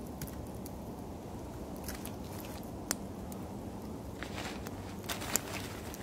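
Wood campfire crackling, with a few scattered sharp pops over a steady low rush. Past the middle, a bag rustles and crunches as it is handled, and the loudest pop comes during it.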